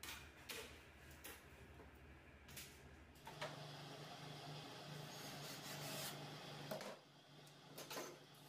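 Faint cordless drill running steadily for a few seconds while driving screws through PVC ceiling panels, stopping about seven seconds in and starting again near the end, with scattered clicks and knocks of the plastic panels being pushed into place.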